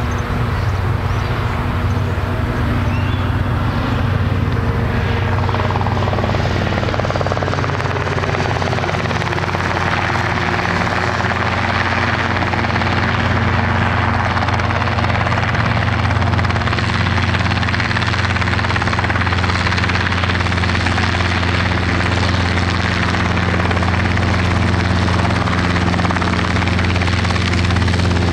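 Robinson R22 helicopter flying in low and coming in close: the two-blade main rotor beating and the Lycoming four-cylinder piston engine running steadily, growing a little louder as it nears.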